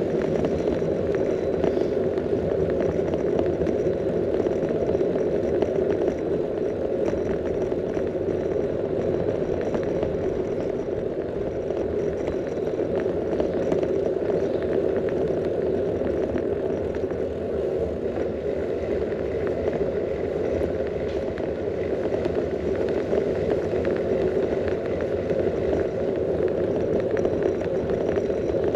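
Bicycle rolling steadily on an asphalt road, picked up by a camera on the handlebars: an even rolling noise from the tyres and road, with light rattling from the bike running through it.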